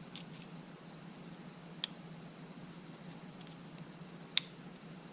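Small tools or parts clicking against each other during hand work on a camera: a faint click near the start, then two sharp clicks about two and a half seconds apart, over a steady low hum.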